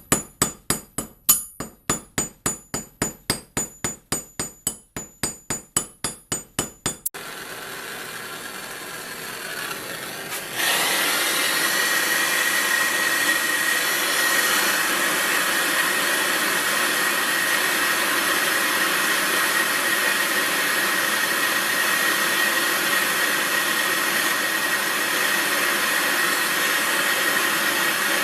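Small ball peen hammer tapping quickly and evenly on the end of a steel rivet rod held in a die, about three or four ringing metal strikes a second, setting the rivet's head. After about seven seconds it cuts off suddenly to a steady whir that gets louder a few seconds later and carries a steady whine, like a running machine.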